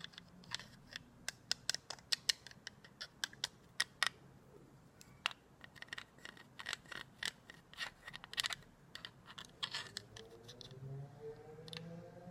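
Sticky, wet mouth clicks and smacks of aloe vera gel being chewed close to the microphone, a few sharp snaps a second in an uneven run. A faint rising tone joins near the end.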